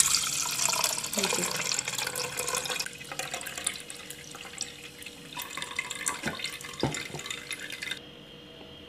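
Blended watermelon juice being poured through a plastic strainer into a glass jug, splashing and gurgling. The pour is heaviest for the first three seconds or so, then thins to lighter splashes and drips before stopping about eight seconds in.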